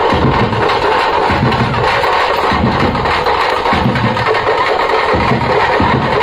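Loud music with a steady, heavy drum beat, as played for street dancing.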